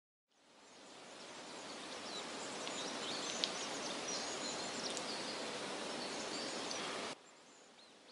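Outdoor woodland ambience: a steady rustling hiss with small birds chirping high above it. It fades in over the first couple of seconds and cuts off abruptly about seven seconds in, leaving only a faint background.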